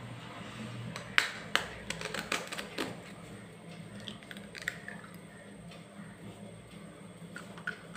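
A knife blade tapped against a raw egg to crack its shell: a cluster of sharp taps and cracks between about one and three seconds in, then a few fainter clicks as the shell is pulled apart over a steel bowl.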